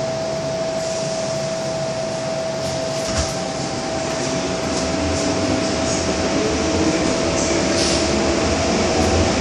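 Hong Kong MTR M-Train heard from inside the carriage, standing with doors closed, with a steady hum from its onboard equipment and a soft knock about three seconds in. From about halfway, a low whine from the traction equipment sets in, growing louder and edging up in pitch as the train starts to pull away.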